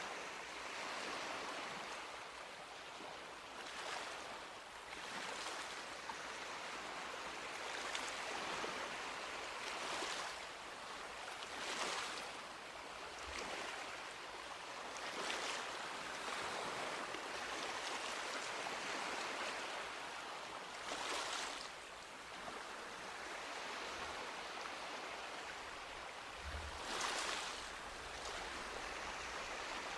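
Small sea waves breaking and washing up a beach, a fresh surge of hiss every two to four seconds over a steady wash. A few soft low thumps come in the second half.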